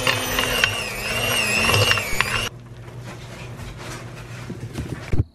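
Electric hand mixer running with its beaters in cooked chicken in a slow-cooker crock, shredding the meat; the motor's whine wavers in pitch as it works, with a few sharp knocks. It cuts off suddenly about two and a half seconds in.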